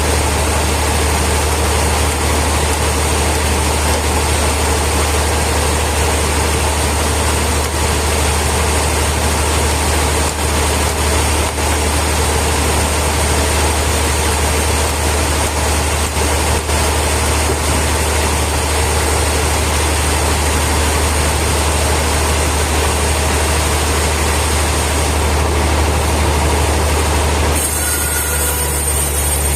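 Heavy sawmill machinery running with a steady low hum over a wide mechanical noise; the sound changes about two seconds before the end.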